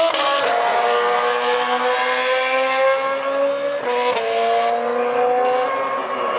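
Red Bull Formula One car's engine at high revs as it passes and pulls away, its pitch climbing through the gears, with sharp upshifts about half a second and about four seconds in.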